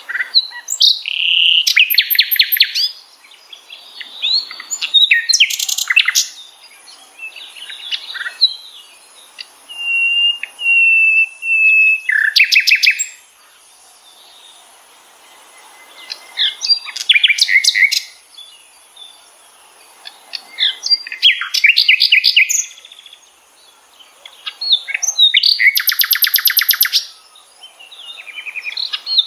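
Wild birds singing: loud bursts of rapid, high, repeated notes, each a second or two long, coming back every few seconds, with a faint steady high hiss underneath.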